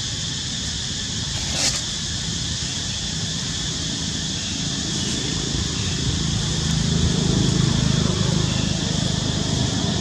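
An aircraft passing overhead: a low engine rumble that swells from about halfway through and is loudest near the end, over a steady high hiss. A single sharp click about two seconds in.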